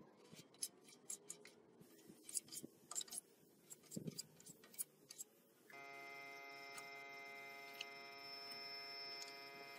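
Faint, irregular ticks and scrapes of a plastic filler spreader working body filler over a metal scooter panel. About six seconds in, a steady buzzing hum with many even overtones starts and holds.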